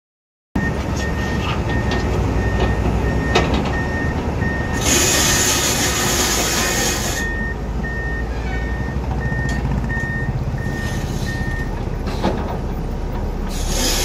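Hyundai Robex 215L crawler excavator's diesel engine running under load as it digs soil, with a warning alarm beeping about one and a half times a second until near the end. A rushing hiss lasts about two seconds in the middle, and there are a couple of sharp knocks.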